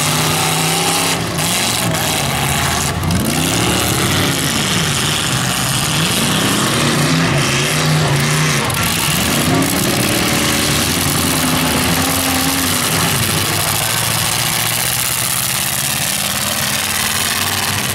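Several demolition derby cars' engines running hard, their pitch climbing and falling in long sweeps over and over as the cars accelerate, spin and reverse on the dirt.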